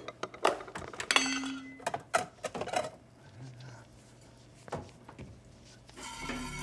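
Dishes and food containers clattering and clinking as they are moved about inside an open refrigerator, with a quick run of knocks in the first three seconds and one more knock near five seconds. Soft string music comes in near the end.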